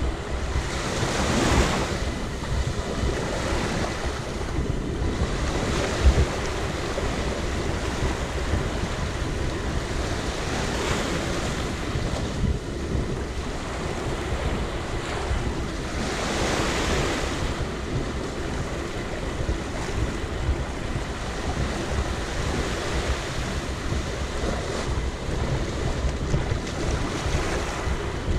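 Small waves breaking and washing up on a sandy shore, swelling now and then, with wind rumbling on the microphone. A short knock about six seconds in.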